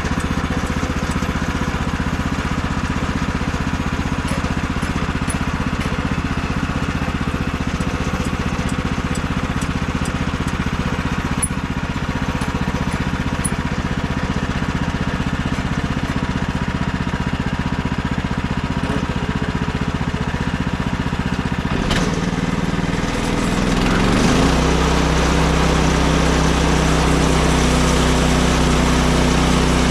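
Gas engine of a Woodland Mills HM130 Max portable band sawmill running steadily at idle. About 22 seconds in there is a click, and the engine speeds up over a couple of seconds, then holds a higher, louder steady speed.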